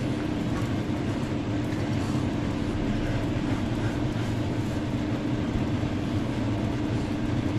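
Pet grooming dryer blowing hot air, its motor running steadily with a constant low hum.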